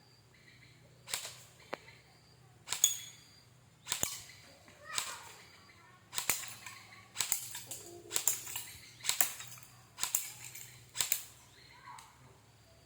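M4 CQB airsoft BB gun firing single shots, about one a second, roughly a dozen in all, each a sharp crack with a short tail.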